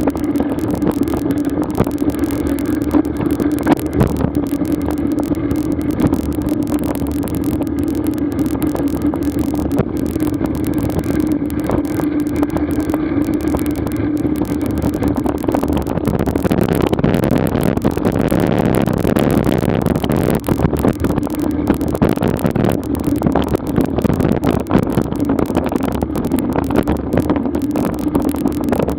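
A vehicle travelling slowly along a paved road, heard from a camera mounted on it: a steady hum with scattered knocks and rattles. A rushing noise swells about sixteen seconds in and fades again after about five seconds.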